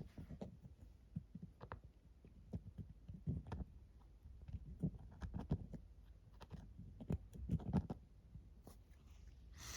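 Handling noise at close range: irregular soft knocks, taps and clicks with low thuds, the loudest cluster a little over two seconds before the end.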